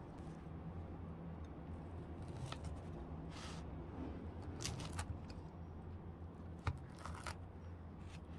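Large kitchen knife slicing through a freshly baked, soft-crusted pide: a few faint crackly scrapes as the blade cuts the crust, and a light knock of the blade on the wooden cutting board about two-thirds through. A low steady hum underneath.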